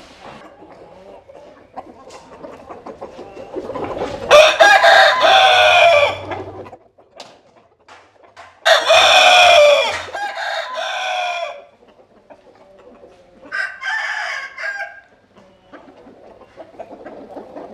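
Roosters crowing three times: two long, loud crows about four and nine seconds in, then a shorter crow near fourteen seconds.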